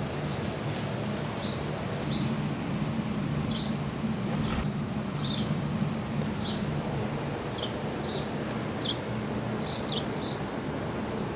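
A bird chirping repeatedly: about a dozen short, high, down-slurred chirps, roughly one a second, over a steady low hum of background noise. A single sharp knock sounds about four and a half seconds in.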